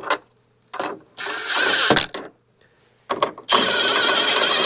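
Ratchet wrench clicking in two rasping runs of about a second each, a few separate clicks leading into each, as it turns the headlight's mounting hardware.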